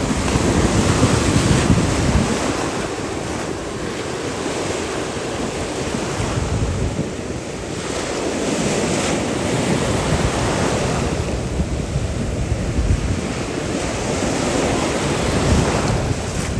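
Ocean surf breaking and washing around, swelling and easing every few seconds, with wind buffeting the microphone.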